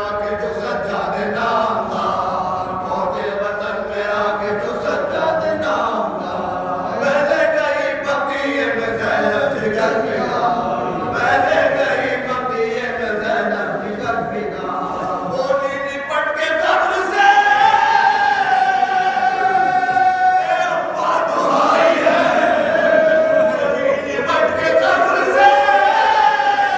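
A small group of men chanting a marsiya, a Shia mourning elegy, together in unison without instruments. About two thirds of the way through their voices grow louder and they hold long drawn-out notes.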